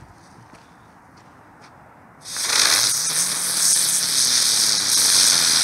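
Weco 'Dicke Brummer' ground spinner catching about two seconds in: a loud spraying hiss of sparks with a low hum that rises in pitch and then slowly sinks as it spins.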